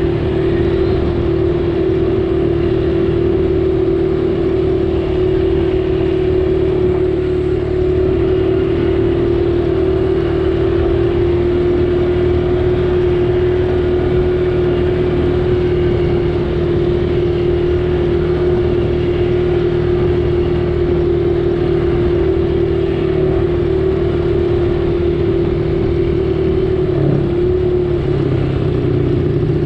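A vehicle engine running at a steady speed, a constant drone with a strong steady hum; near the end its pitch dips and shifts briefly.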